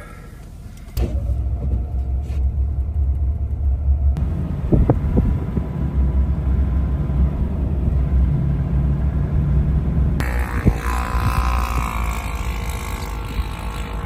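Pickup truck on the road: a steady low engine and road rumble that comes in abruptly about a second in, with a rising hiss added near the end.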